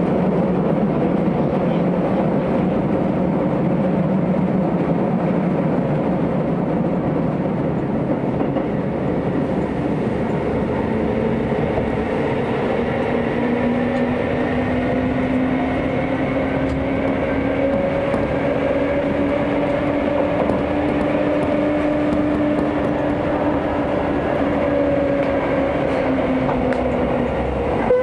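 Inside a Chiba New Town Railway 9000 series electric train running through a subway tunnel: a steady rush and rumble of wheels on rail. From about halfway, a faint whine slowly rises in pitch and fades out near the end.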